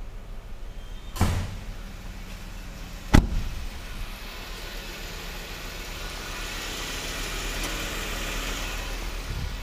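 The door of a Jeep Wrangler being handled and shut: a thud a little over a second in, then a louder, sharper slam about three seconds in. After it a hiss slowly grows over a steady low hum.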